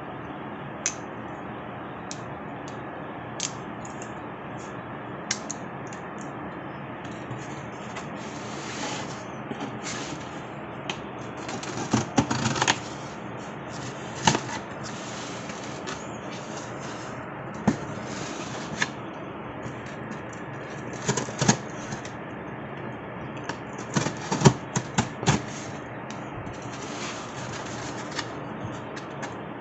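Sharp metallic clicks of a folding multitool being handled and its knife blade opened, then the blade scraping and slicing through packing tape on a cardboard box. The clicks come singly at first and in quick clusters later, over a steady hiss.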